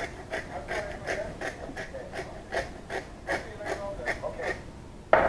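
A condiment bottle shaken upside down over a bowl of ground meat, in short strokes about three a second. A loud knock near the end.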